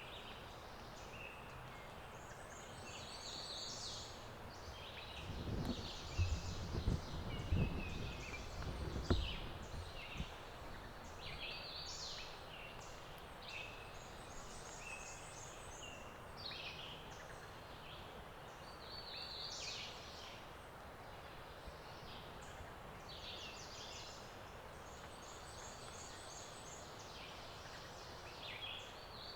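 Several songbirds singing in the woods, their short high songs overlapping throughout. A cluster of low thuds and rumbles comes from about six to ten seconds in.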